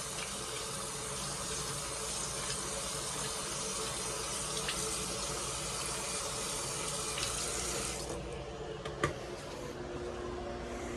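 Sink faucet running water, cut off abruptly about eight seconds in, followed a second later by a single sharp click.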